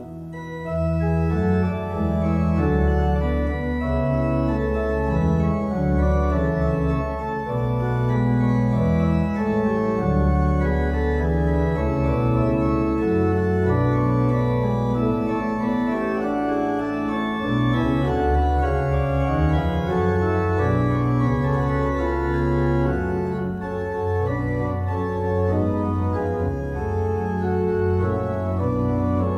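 Church organ playing full sustained chords over held low pedal notes, growing louder about a second in.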